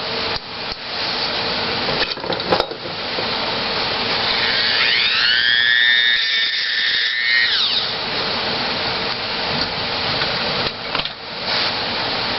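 Dremel rotary tool with an abrasive cut-off disc cutting through a 1/4-inch steel rod: a steady, high grinding hiss. About five seconds in, a whining tone rises, holds, and falls away again about two and a half seconds later.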